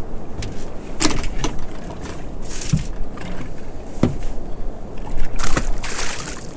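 Sea water washing around a small boat's hull, with scattered knocks and clicks as a fish is handled, then a splash about five and a half seconds in as a released pouting hits the water.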